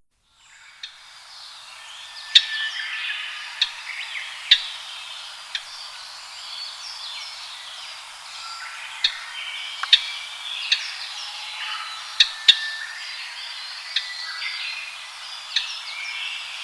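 Japanese grosbeaks calling and chattering, with many overlapping chirps and short whistled phrases that fade in about half a second in. About a dozen sharp clicks stand out above the chatter, scattered irregularly.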